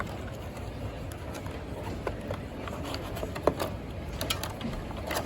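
Packaging being handled while a small tripod is taken out of its box: scattered light clicks and rustles, with one sharper click about three and a half seconds in, over a steady background hiss.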